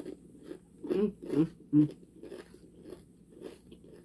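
Close-up chewing of crispy fried chicken breading: wet crunching and smacking with many short crackling ticks, with a few short hums from the eater about one to two seconds in.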